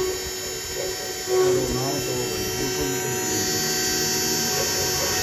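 CNC engraving machine running: a steady electric hum and whine made of several held tones, the high whine growing stronger about three seconds in.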